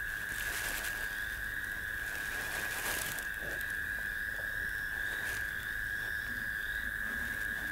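Night chorus of calling animals: a continuous high-pitched trill held at one pitch, with faint short chirps repeating above it.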